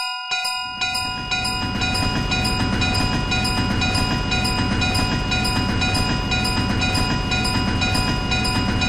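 Railroad crossing warning bell ringing in a fast, even ding-ding rhythm, joined about a second in by the low rumble of a train passing over the crossing.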